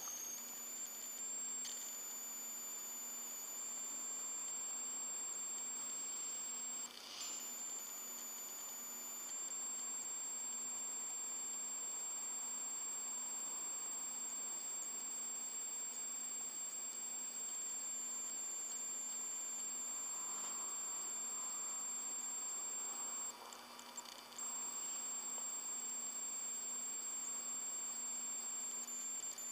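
A steady high-pitched electronic whine with a faint low hum and hiss, unchanging apart from two brief dips. This is background electronic noise while the switched-off phone sits silent, before its alarm rings.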